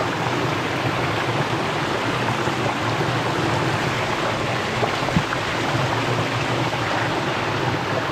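Mountain stream water rushing over rocks in a steady, even wash, with a single faint click about five seconds in.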